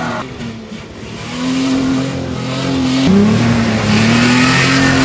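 Pickup truck engine revving hard as the truck accelerates, with tires rushing over mud. The engine note fades briefly near the start, then climbs. About three seconds in it drops suddenly, as at a gear change, and climbs again.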